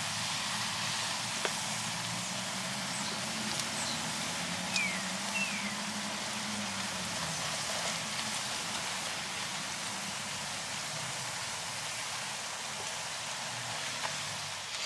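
Quartered tortillas frying in hot oil in a wok: a steady sizzle, the oil at frying temperature. A few light clicks of metal tongs turning the pieces.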